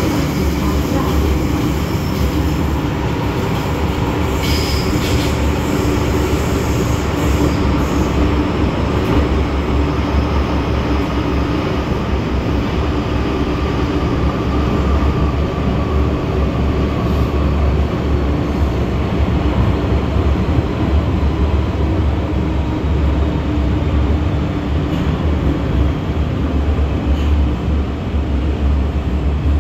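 MTR M-Train electric multiple unit running between stations, heard from inside the car: a steady, loud rumble of wheels on rail and traction motors. A brief high wheel squeal comes about four seconds in.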